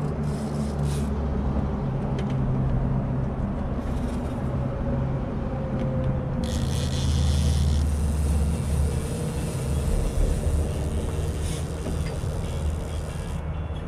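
Boat motor running steadily with a low hum. A broad hiss joins about halfway and cuts off near the end.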